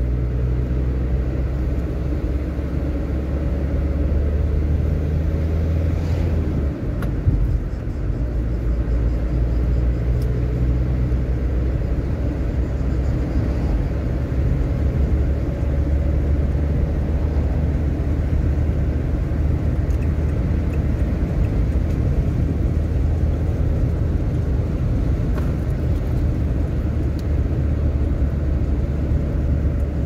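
Car driving slowly through town with the windows open: steady engine and road rumble heard from inside the cabin. The rumble dips briefly about seven seconds in.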